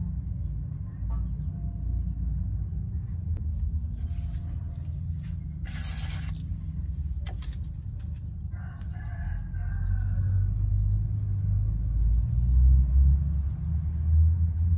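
A rooster crowing in the background, one call about two seconds long a little past the middle, over a steady low rumble. A brief hissing noise sounds about six seconds in.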